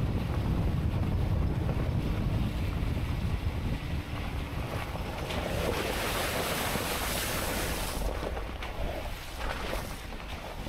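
Steady, rough noise of a truck driving on a dirt trail, a low rumble with wind buffeting the microphone, easing a little in the last few seconds.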